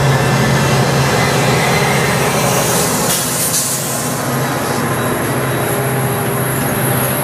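Metra EMD F40PH diesel locomotive passing close by with a steady engine drone, followed by bi-level gallery coaches rolling past with steady wheel-on-rail noise. A brief hiss comes about three seconds in.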